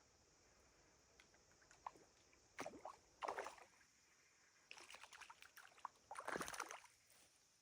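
Water splashing and sloshing in three short bursts over a few seconds.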